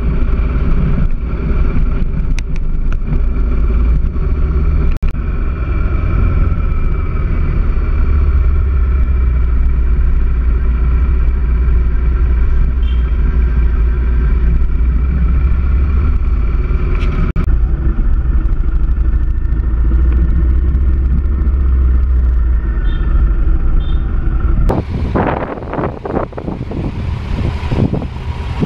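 Motorcycle engine running steadily on a ride, with a heavy low rumble. About four seconds before the end the low rumble falls away and a rougher, uneven noise takes over.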